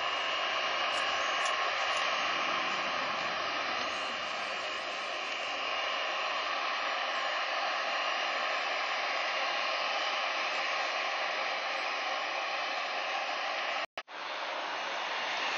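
Jet airliner engines running: a steady rushing roar with thin, even whining tones through it, cut off for an instant about fourteen seconds in.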